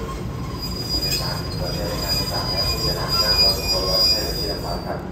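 Train wheels and brakes squealing as a Thai diesel-hauled ordinary passenger train slows into a station: a high, steady squeal over the rumble of the coach that cuts off near the end as the train comes to a stop.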